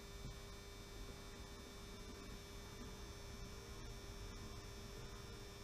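Faint steady hum from a 60-year-old model railway power controller running the funicular.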